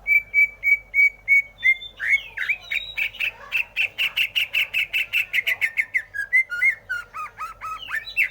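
Green leafbird (cucak hijau) singing: a run of short, even whistled notes at one pitch, about three a second, then a fast chattering string of notes, ending in lower swooping notes.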